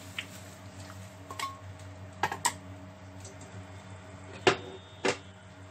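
A spatula clinking and knocking against a wok of beef short ribs, onions and water as it is stirred: a few scattered sharp clinks, the loudest two near the end, over a steady low hum.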